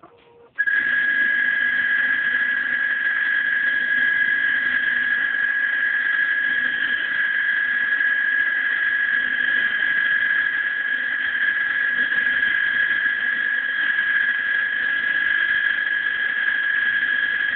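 Leica VT1000S vibratome running, its blade vibrating as it advances toward the tissue block, giving a steady high whine with a fainter low hum underneath. The sound starts abruptly about half a second in.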